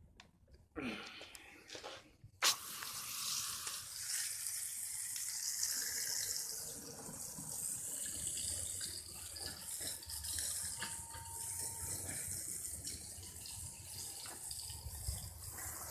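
Garden hose spray nozzle opened with a sharp click about two and a half seconds in, then spraying water steadily.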